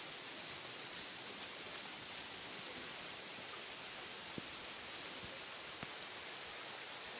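Steady rain falling, an even hiss, with a few faint ticks of single drops.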